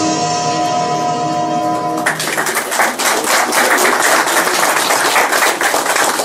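Music ending on a held chord, then a room full of people applauding from about two seconds in.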